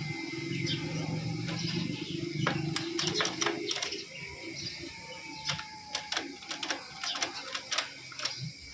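Sharp metallic clicks and clinks of a long steel tool working the gearshift mechanism of an opened motorcycle engine, over a steady low hum that fades about halfway through.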